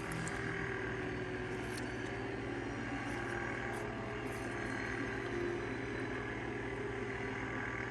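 A steady mechanical background hum with a few steady tones running through it, and a couple of faint clicks.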